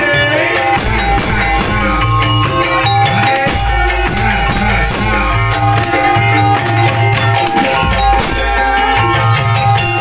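Javanese gamelan music (gending) with drumming, played loud and steady as accompaniment for an ebeg hobby-horse dance.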